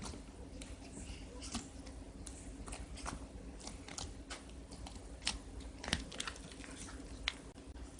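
Slime being squeezed and played with by hand, giving irregular small sticky clicks and pops, a few louder ones past the middle, over a faint steady hum.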